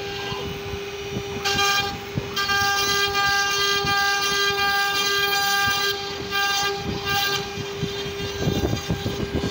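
CNC router spindle running with a steady whine while its bit carves a relief pattern into a wood panel, with crackling of the cut underneath. From about a second and a half in, a shriller, ringing whine with several tones comes in and breaks off in stretches until about seven seconds in.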